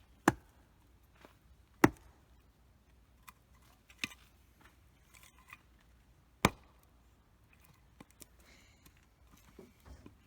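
Firewood being chopped: four sharp, loud cracks at irregular intervals of about one and a half to two and a half seconds, with a few faint ticks between them.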